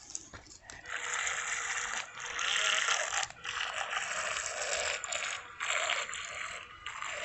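Remote-control toy gator boat's small electric motor and gears buzzing as it swims on the water, running in spurts with several short breaks.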